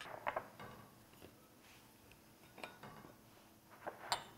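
A few light clinks and taps of kitchen utensils against glass bowls, the clearest near the start, about two and a half seconds in and near the end.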